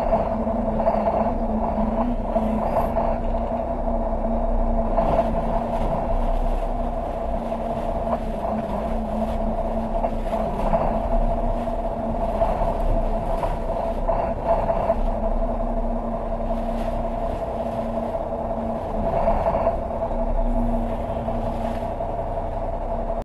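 2016 Tiara 50 Coupe yacht's engines idling while the boat lies at the dock: a steady drone with a constant hum, with a few light knocks here and there.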